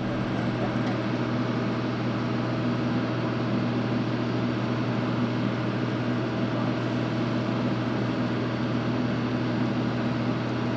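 Steady mechanical hum of the parked Vickers VC10's running auxiliary power unit, a constant low drone with a few steady tones above it and no change in pitch or level.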